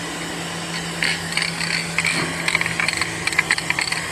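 Aerosol spray can being shaken, its mixing ball rattling in quick uneven clicks, then spraying near the end.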